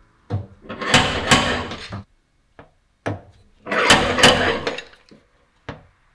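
Hand body-repair tools working a low spot out of a Porsche 911 GT3 RS's dented sheet-metal side panel, in two long bursts of metal-on-metal scraping and clatter of about two seconds each, and a short one near the end.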